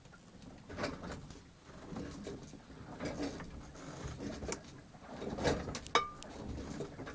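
Storm wind and choppy water around a boat: irregular surges of noise about every second, with one sharp knock near the end.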